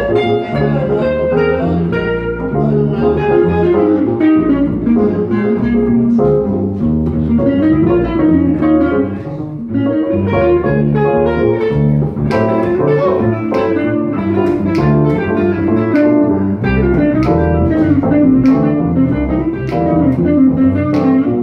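Live jazz group playing, with a guitar taking the lead over stage piano and double bass.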